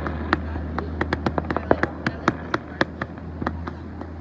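Fireworks cracking and popping in quick, irregular succession, several sharp reports a second.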